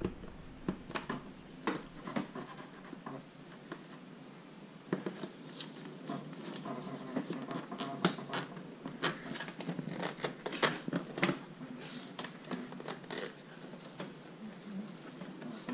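Irregular light scratching, rustling and small taps of hand-cleaning work on car parts, with several sharper clicks between about five and twelve seconds in.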